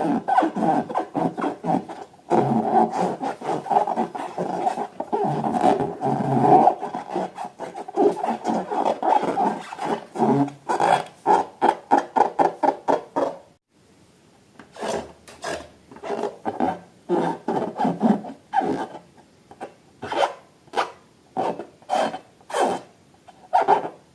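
Rubber balloons rubbing and squeaking as they are handled. There is fast, continuous rubbing for about the first 13 seconds, then it breaks into a series of separate short squeaks with sharp clicks.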